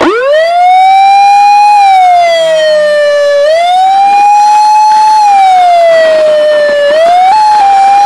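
Fire truck's siren, loud and close, winding up steeply at the start and then wailing slowly up and down, about one rise and fall every three and a half seconds.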